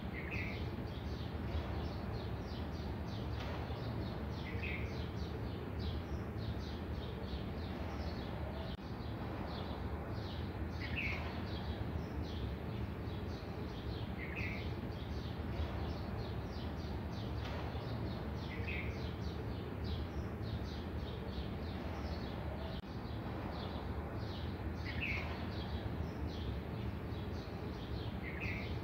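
Birds chirping: one short call repeats every three to four seconds over a dense, continuous chatter of faster, higher chirps, with a steady low hum underneath.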